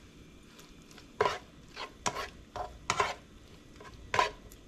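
A cooking utensil stirring and scraping in a pan of food, making a string of short, irregularly spaced scrapes and knocks over a faint sizzle.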